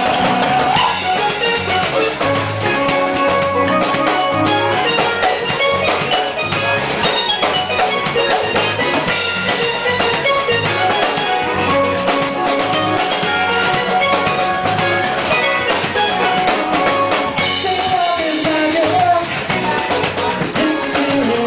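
A live band playing, with a drum kit driving a steady beat under a guitar, which slides its pitch about a second in and again near the end.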